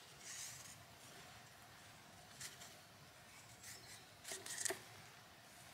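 Faint scraping and rustling of a knife slicing along a willow stick and willow bark strips being peeled off, a few short scrapes with the loudest just over four seconds in.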